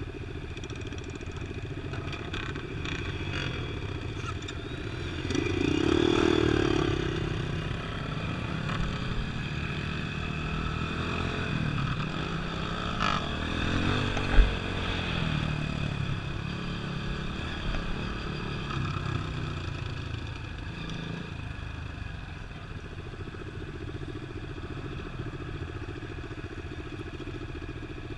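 Off-road vehicle engine running steadily as it drives, revving up briefly about six seconds in, with a sharp knock about halfway through.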